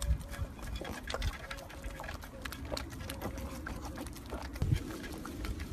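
A pug snuffling close by, with many small wet mouth clicks.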